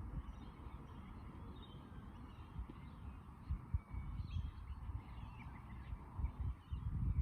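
Several birds calling with short, scattered chirps, over a low rumble and a few dull thumps.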